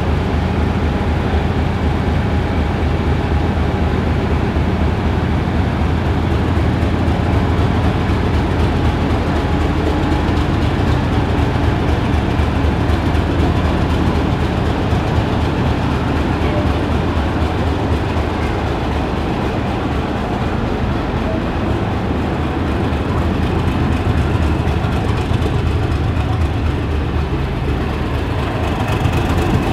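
Class 31 diesel locomotive's English Electric V12 engine working steadily as it hauls the train slowly away from the platform, heard from a coach behind it, with the coach rolling on the rails.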